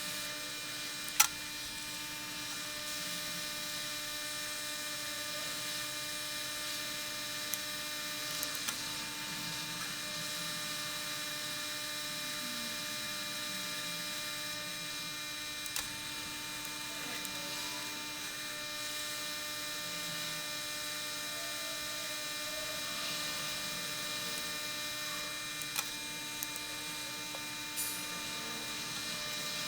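Steady electrical hum with several fixed pitches layered in it, broken by one sharp click about a second in and a few faint clicks later on.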